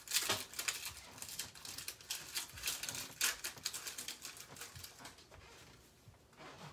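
Hockey trading cards being handled and flicked through by hand: a run of light rustling and small clicks, thinning out near the end.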